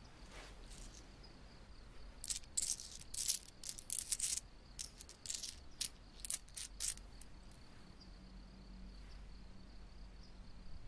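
A handful of coins, copper pennies and bimetallic pound coins among them, clinking together in an open palm as fingers pick through them: a run of light metallic clinks from about two seconds in until about seven seconds in.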